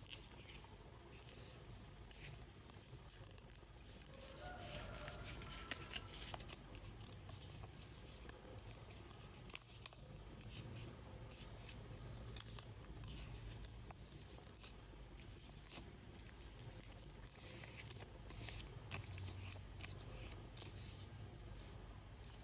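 Sheet of paper being folded and creased by hand: faint, irregular crisp rustles and crackles, many short ones in a row.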